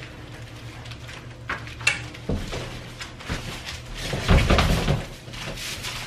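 Bumps, knocks and scraping of a plastic-wrapped LG washing machine being carried up stairs and through a doorway, with its wrap crinkling. A few separate knocks come in the first half, then a louder stretch of thudding and scraping about four seconds in.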